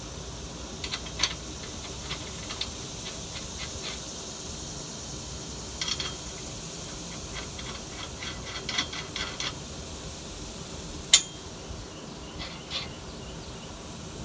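Light metallic clicks and taps from steel hitch parts and hardware being handled by hand, coming in scattered clusters, with one sharper click about eleven seconds in, over a steady background hiss.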